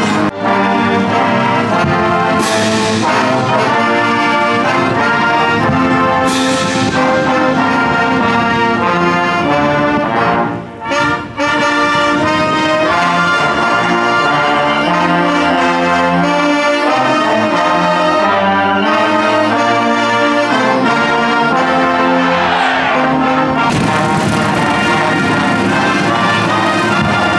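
Marching band playing outdoors, led by a full brass section holding loud sustained chords, with crashes about two and six seconds in. The music drops out briefly twice near the ten-second mark.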